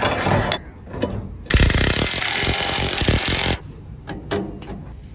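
Power tool, an impact wrench, hammering for about two seconds as the wheel is fastened back on the axle, with light clicks and knocks of parts being handled around it.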